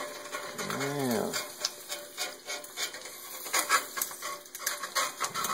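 Metal slotted spatula scraping and sliding across the bottom of a cast iron skillet, working under fried eggs to lift them, in short irregular scrapes and clicks.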